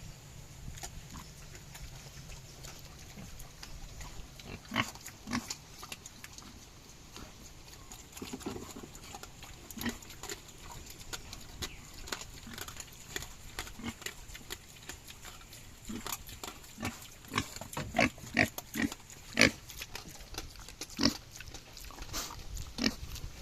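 Native pigs chewing wild bananas, making irregular crisp crunches that come thicker and louder about two-thirds of the way through.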